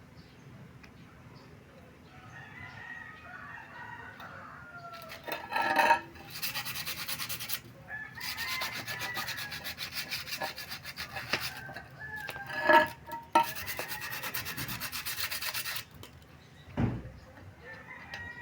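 Harsh rasping noise in three long bursts, with a rooster crowing in the background.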